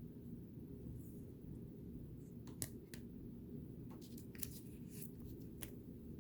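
Trading cards and their pack wrappers being handled: a few short, crisp clicks and rustles, clustered about two and a half seconds in and again from about four seconds, over a steady low hum.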